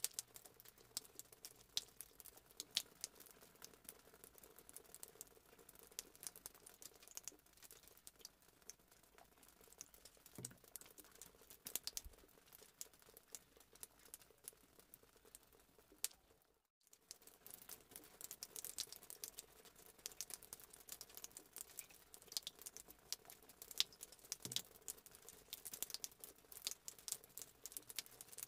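Faint kitchen handling noise: scattered light clicks and a few soft knocks over a low steady hum, with a brief dropout to silence about two-thirds of the way through.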